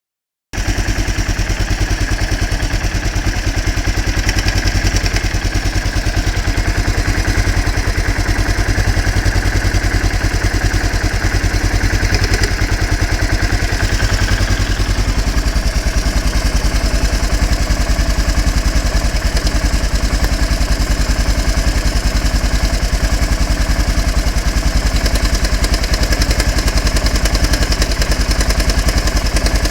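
Suzuki DR 800's big single-cylinder four-stroke engine idling steadily, with a strange mechanical noise in its running that the owner cannot explain. The noise is louder with the engine cold and almost gone once warm, and persists with the balancer shaft chains already tightened to the manual.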